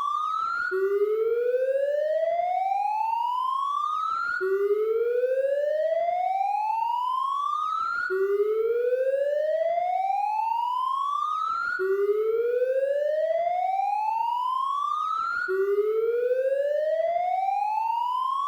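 Police siren wailing in a repeating cycle: the tone climbs steadily for nearly four seconds, drops back sharply to its low pitch and starts climbing again, about five times over.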